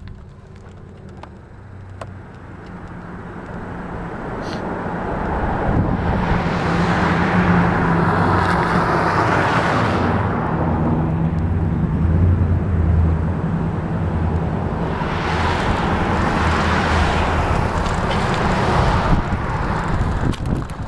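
Motor vehicle traffic: a steady low engine hum, with the noise of passing vehicles swelling twice, building up over the first few seconds.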